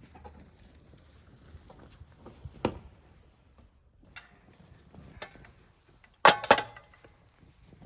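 Light knocks and clicks from objects being handled, then a loud double clatter about six seconds in with a brief ring.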